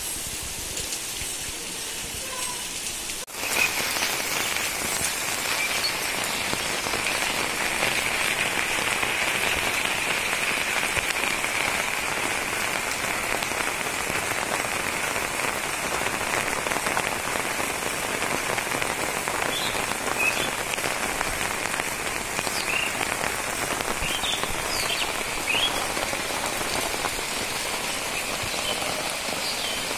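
Steady rain falling, with a sudden rise in loudness about three seconds in. A few short, high calls come through near the end.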